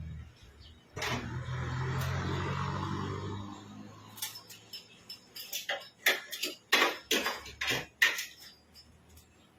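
A steady machine hum with a hiss over it for about two and a half seconds, then a run of sharp metallic clinks and clatters, several in quick succession.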